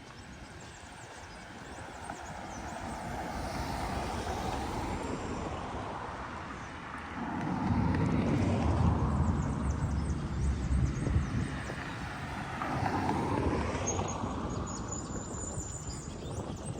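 Sea waves breaking and washing up a sandy beach, a steady rush that swells into a louder, deeper surge about halfway through and rises again near the end.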